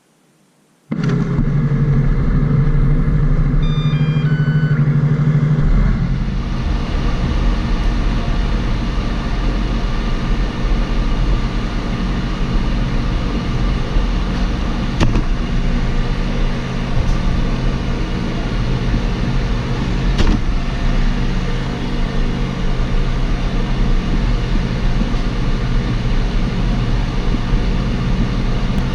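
Ecovacs Deebot N79 robot vacuum switching on about a second in and running, heard close up: a few short beeping tones at different pitches, then its suction fan and brushes running steadily from about six seconds on, with two sharp knocks later.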